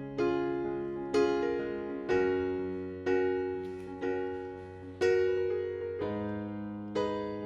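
Background music: slow piano chords, one struck about once a second and left to fade before the next.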